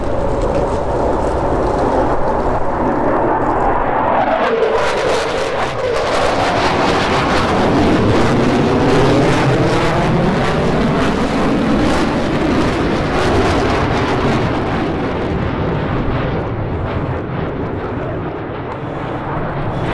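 F-15 fighter jet's twin turbofan engines on a display pass: loud, continuous jet noise that grows brighter and harsher about four seconds in, with sweeping pitch shifts as the aircraft moves past, then eases off somewhat near the end.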